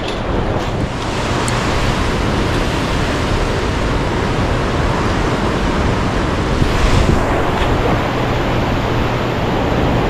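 Steady rushing noise of wind on the microphone and water outdoors, with a faint low hum underneath.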